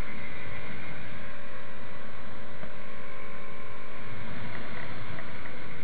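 Yamaha MT-03 motorcycle riding at a steady speed: the engine runs evenly under a constant rush of wind noise.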